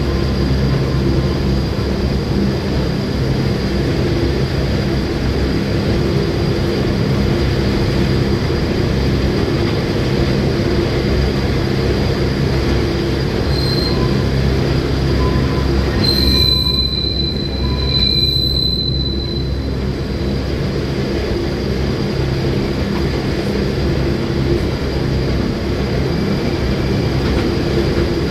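Gornergratbahn metre-gauge rack-railway train running, heard on board: a steady drone and hum from the motors and running gear. About halfway through, the wheels squeal at a high pitch in a few short bursts over some five seconds.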